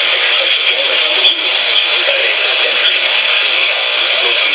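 Radio receiver picking up a weak, noisy signal: a steady hiss of static through its small speaker, the sound thin and limited to the middle of the range.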